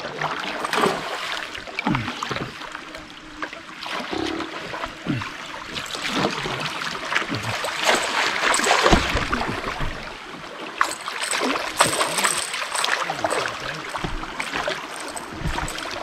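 Water splashing and rushing along the hull of a moving canoe, broken by irregular small knocks and splashes.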